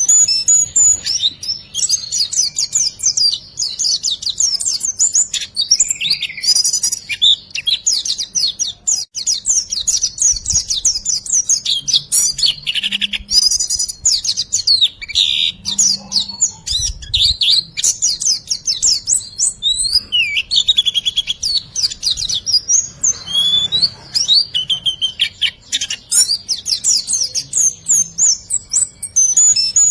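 Rapid, continuous high-pitched bird chirps and short trills, one call after another with hardly a pause: a 'riwikan' masteran recording of the kind played to songbirds such as white-eyes to teach them calls.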